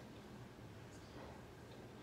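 Near silence: room tone, with a faint brief rustle about a second in.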